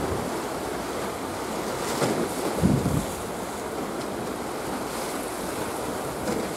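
Wind over choppy sea water: a steady rush of wind and waves, with gusts buffeting the microphone about two seconds in and again just before three seconds.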